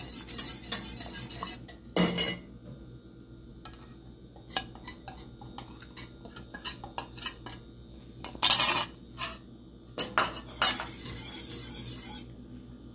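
Wire balloon whisk clicking and scraping against the sides of a metal pot while stirring liquid atole. Brisk clicking at first, then scattered taps with a few louder clatters about two, eight and a half and ten seconds in.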